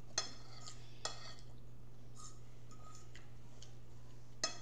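Tableware clinking during a meal: three short, sharp clinks with a brief ringing, one at the very start, one about a second in and one near the end, over a steady low hum.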